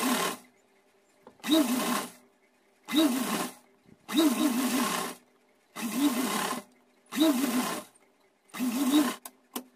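Sewing machine stitching a lace border onto the edge of a stiffened fabric skirt. It runs in about seven short spurts, each under a second long, roughly every second and a half.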